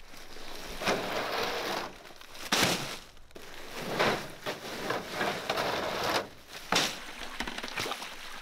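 Plastic bags of rocks rustling and crinkling as they are handled and dropped into a wheelbarrow, with stones clattering. There are about five sharper, louder bursts.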